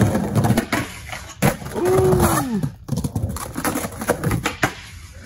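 Skateboard rolling on backyard ramps: a low rumble from the wheels, with a tone that rises and falls once for about a second, and several sharp clacks and knocks of the board and trucks.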